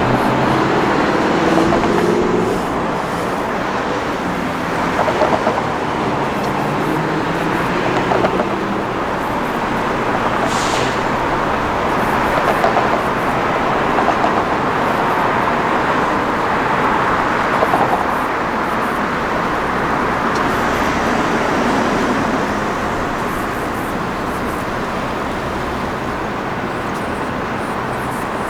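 Road and traffic noise from a camera on the roof of a moving van: a steady rush of tyres and passing vehicles, with an engine rising in pitch in the first few seconds and a brief high hiss about ten seconds in.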